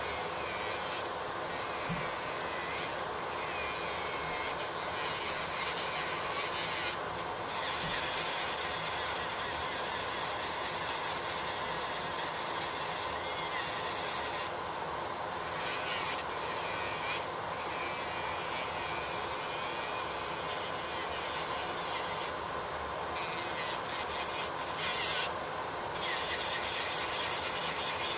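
Electric nail drill grinding acrylic off fingernails, a steady grinding hiss whose high edge breaks off briefly several times as the bit lifts from the nail. Underneath runs the steady whir of a Makartt nail dust collector's fan.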